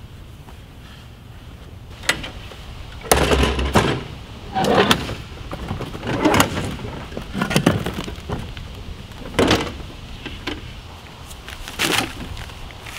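A folding table being set up, with a string of about seven sharp knocks and clatters as its metal legs are swung out and the table is set down. Near the end come heavy thumps as bags of concrete mix land on the wooden top.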